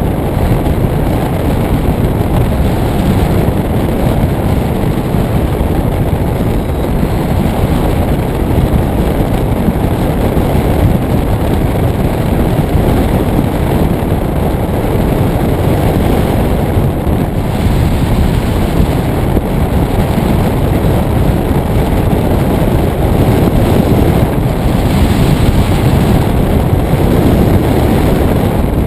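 Steady, loud rush of airflow buffeting the microphone of a hang glider in flight.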